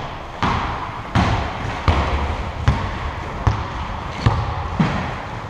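A basketball being dribbled on a hard court floor: about seven bounces, evenly spaced at a little over one a second.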